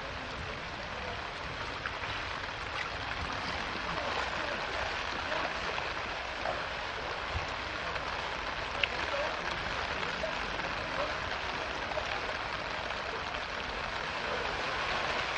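Steady rain and floodwater running through a street, an even hiss throughout, with one short sharp click about nine seconds in.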